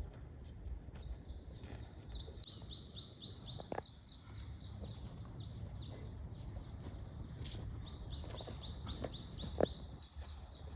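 A bird calling in a fast run of short, high chirps, about five a second, starting about two seconds in and stopping near the end, over a low steady background noise.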